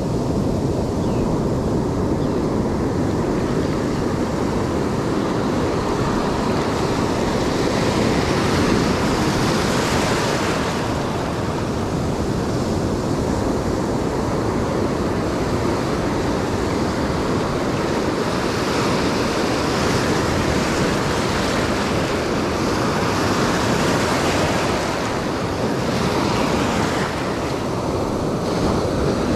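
Ocean surf breaking and whitewater washing in, a steady, dense rush. The hiss rises each time a wave washes through, a few times over.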